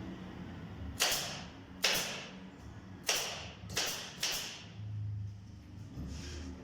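Nails being driven into the wood of a budgie cage frame: five sharp shots, each trailing off in a short hiss, the first two about a second apart and the last three quicker, then a fainter one near the end.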